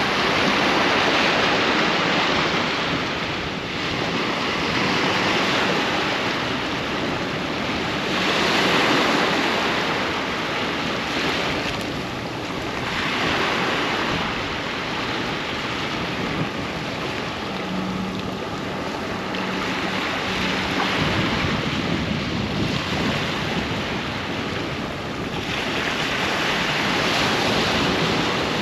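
Ocean waves breaking and washing up on the beach, the surf swelling and easing every few seconds.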